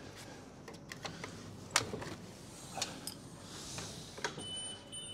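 Clicks and knocks of a New Holland T7 tractor's bonnet being unlatched and swung open, the sharpest a little under two seconds in, with a brief hiss later on.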